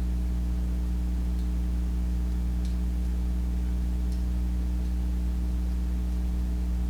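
Steady electrical hum with a stack of overtones, with four faint light metallic ticks about every second and a half: lock picks working the pins inside a Commando padlock.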